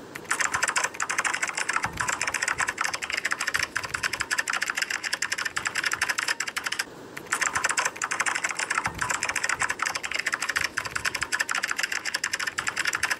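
Rapid computer-keyboard typing: a continuous stream of key clicks, with a short pause about seven seconds in. It works as a typing sound effect under text being typed out on screen.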